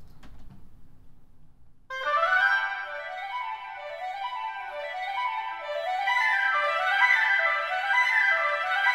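Sampled orchestral woodwinds (Orchestral Tools Berlin Woodwinds) playing fast, repeating scale runs in flutes and clarinets, entering about two seconds in. The runs move in contrary motion, flutes going down and clarinets going up.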